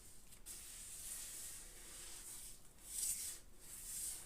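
Faint hissing, rustling noise that swells a few times as wallpaper glue is mixed.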